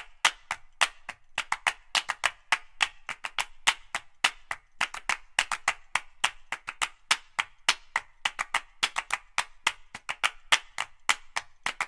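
Percussive music made only of rapid dry clicks and claps, several a second in an uneven rhythm, with no bass or melody.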